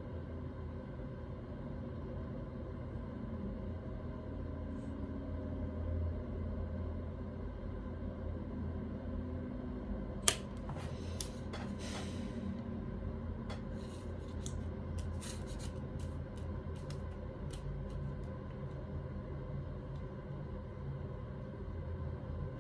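Steady low room hum, broken about ten seconds in by a sharp click, then a couple of seconds of light rustling and a scatter of small clicks over the next few seconds: tarot cards being handled and moved on a wooden table.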